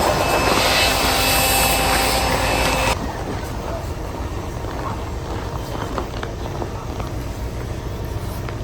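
A steady mechanical running noise with a few steady tones, which cuts off abruptly about three seconds in. It leaves a quieter background of outdoor noise with a few faint knocks.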